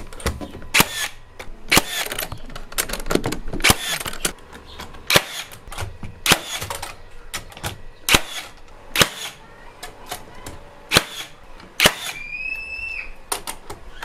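HiKOKI NR3665DA 36V cordless metal connector nailer firing nails through steel joist hangers, a dozen or so sharp shots about one a second. A brief high whine comes near the end.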